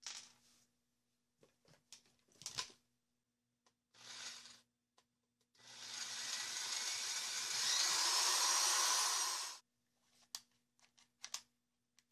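Electric drill driving a screw into a wooden board: a short trigger burst, then about four seconds of steady running with a faint whine rising in pitch near the end. Small clicks and knocks of handling parts come before and after.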